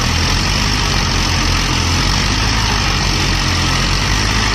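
Eicher tractor's diesel engine running steadily at low revs.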